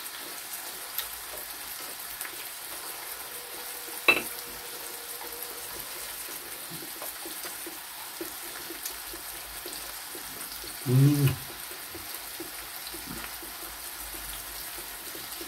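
Slices of pork belly sizzling steadily on a grill pan over a portable gas burner. A sharp click about four seconds in and a brief voice sound about eleven seconds in.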